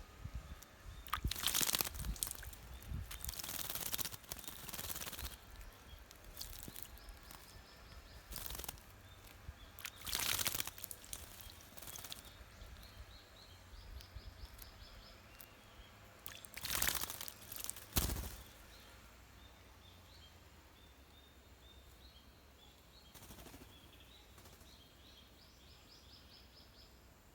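Water splashing in several short, noisy bouts as a bird bathes vigorously in a shallow bird bath, the last and sharpest bout about 18 seconds in. Small birds chirp faintly throughout.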